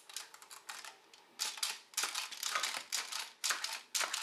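Plastic walking mechanism of a 1982 Kenner Star Wars Scout Walker (AT-ST) toy, worked by pressing its button so the legs swing. It gives a clattering run of rapid clicks in repeated bursts: faint at first, louder from about a second and a half in.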